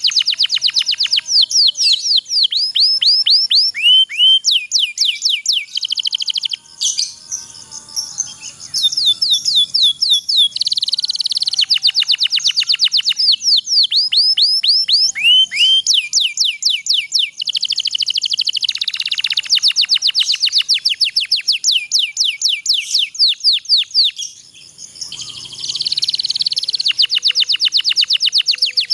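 Domestic canary singing long rolling trills: fast runs of repeated falling notes, with the song dropping off briefly twice, about a quarter of the way in and again near the end.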